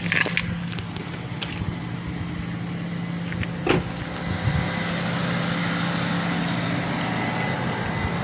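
Car engine running, a steady hum heard from inside the vehicle, with a brief knock a little under four seconds in.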